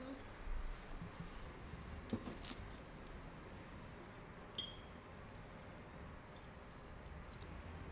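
Quiet room tone with a few soft clicks, and one short clink of metal tongs touching a ceramic serving plate about four and a half seconds in.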